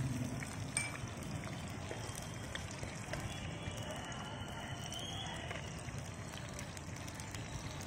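Chopped green chillies and tempering seeds sizzling steadily in hot oil in an iron kadai, with a spatula stirring and scraping the pan now and then.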